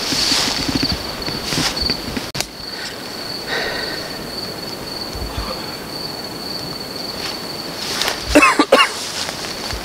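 A cricket trilling steadily on one high pitch, with rustling steps through grass in the first two seconds and a brief, loud wavering sound about eight seconds in.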